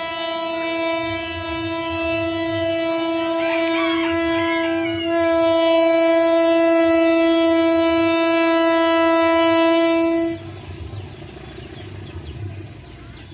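Diesel locomotive horn sounding one long, steady blast from a train held at a stop signal. It gets louder about five seconds in and cuts off sharply about ten seconds in, leaving a low rumble.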